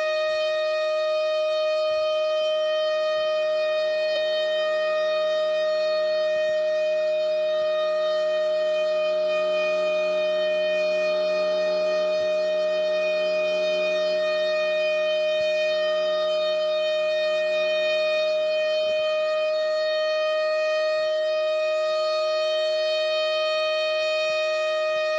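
Federal Signal Thunderbolt 1000AN civil defense siren sounding a loud, steady tone held at one pitch, with no rise or fall.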